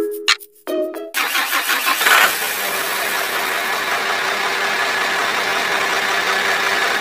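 A few short chiming notes, then about a second in a motor vehicle engine sound effect starts up and runs steadily until it cuts off abruptly.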